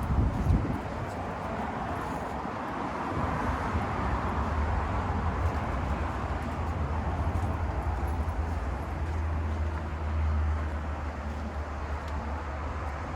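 Steady engine or machine drone with a low hum, swelling a little about ten seconds in.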